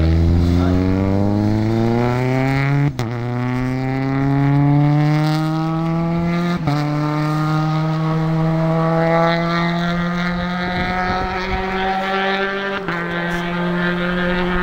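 Rally car engine running hard on a gravel stage, its pitch climbing as it accelerates, with three short breaks where it changes gear, about 3, 7 and 13 seconds in.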